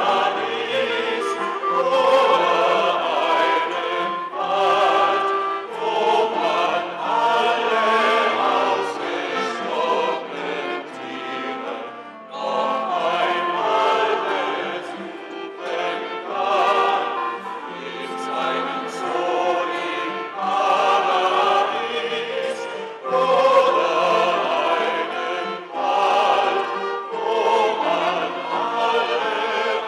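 Small mixed vocal ensemble of men and women singing together in several parts, phrase after phrase, with a short break in the singing about twelve seconds in.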